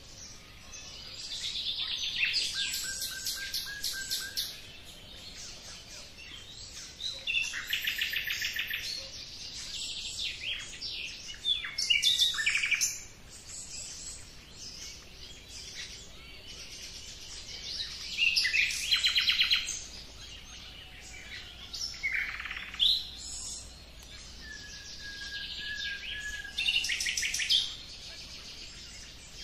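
Birds singing: bursts of fast, trilled phrases and short whistles, repeating every few seconds with brief pauses between songs.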